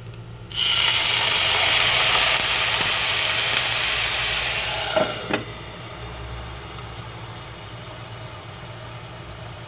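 A splash of water poured into the hot nonstick pan of frying gyoza hisses and sizzles loudly as it flashes to steam; this is the steaming stage of pan-fried dumplings. About five seconds in, a glass lid goes on with two light clinks and the hiss dies away to a low hum.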